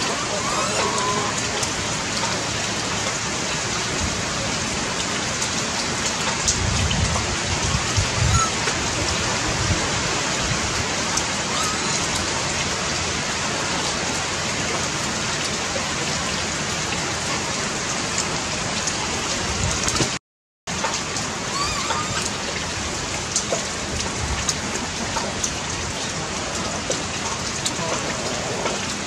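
Steady rain falling, an even hiss with scattered drop ticks and a few low knocks about a quarter of the way in. The sound cuts out for about half a second around two-thirds of the way through.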